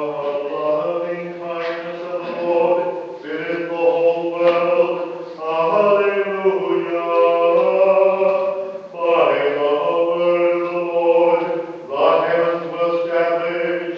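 Slow, chant-like liturgical singing in long held notes, with short breaks between phrases about 3, 9 and 12 seconds in.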